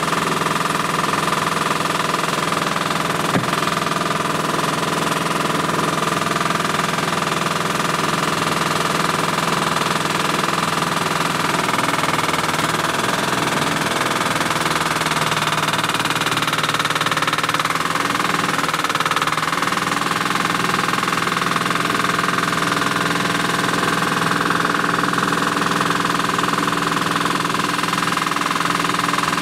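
An engine running steadily at constant speed while the EZ-Lift is unloaded, with a steady high whine over the drone; the whine's pitch shifts slightly about halfway through.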